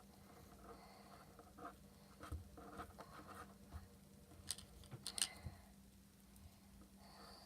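Slime being stretched and folded by hand: faint scattered sticky clicks and soft squishes, with a few sharper clicks past the middle.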